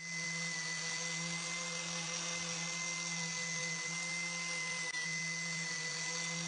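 A small electric power tool's motor running at a constant speed: a steady whine and hum over a hiss.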